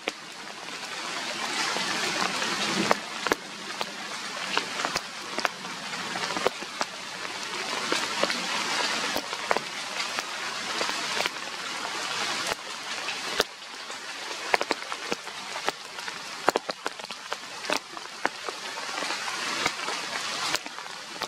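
Rain falling steadily, a hiss that swells and eases every few seconds, with many sharp taps of drops striking nearby surfaces.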